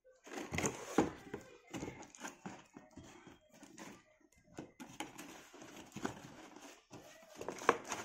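Cardboard box being opened by hand: irregular rustling and scraping of cardboard as the flaps are pulled back, with sharp knocks and taps, loudest about a second in and again near the end.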